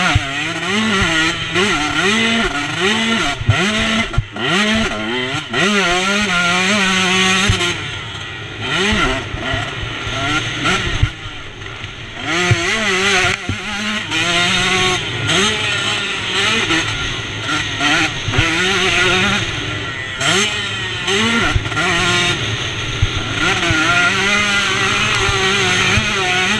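KTM 125 two-stroke motocross engine racing, its pitch rising and falling over and over as the throttle is opened and shut through the corners and ruts. Sharp knocks from the bike hitting bumps come throughout, heard from a helmet camera.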